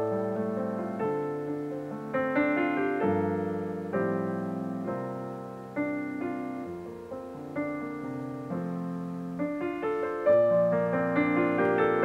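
Solo piano playing a slow, gentle piece: chords struck and left to ring and fade. It grows quieter in the middle, then louder again about ten seconds in.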